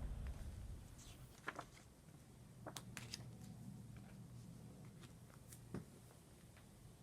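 Near silence: a low whooshing sound effect fades away in the first second, leaving faint room tone with a few scattered soft clicks.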